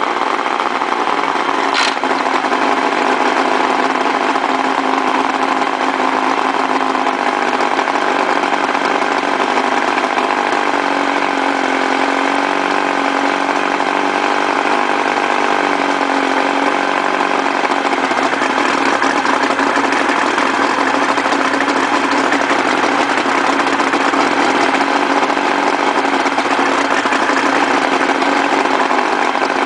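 Mercury 1150 inline-six two-stroke outboard running steadily at a low, even speed, its note shifting slightly now and then.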